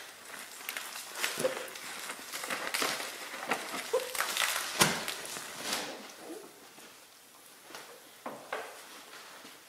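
Soapy wash mitt being rubbed by hand over the wet, foam-covered paintwork of a Porsche Cayenne Turbo: irregular wet swishing and scrunching strokes with a few faint squeaks, quieter near the end.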